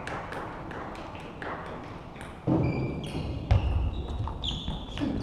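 Table tennis rally in a sports hall: light ball clicks at first, then from about two and a half seconds in the ball clicking fast off bats and table, with heavy thuds and short squeaks of the players' shoes on the floor.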